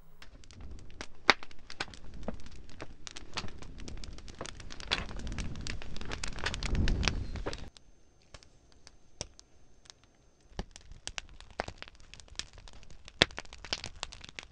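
Wood campfire crackling and popping with irregular sharp snaps. A low rumble runs under the crackling for the first half and cuts off abruptly about eight seconds in, leaving the pops alone.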